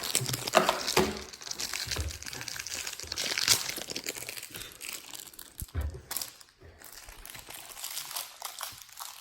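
Plastic packaging crinkling and crackling irregularly as a toy bouncy ball is unwrapped by hand, with a few dull knocks.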